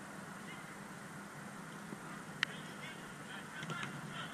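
A football kicked once about halfway through, a single sharp thud, over a steady background hum. Near the end come a few faint, short, high calls from afar.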